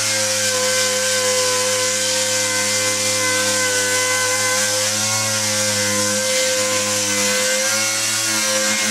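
Pneumatic dual-action sander running steadily with a 40-grit disc, scuffing a fibreglass boat deck to prep it for bonding: a steady whine over a hiss.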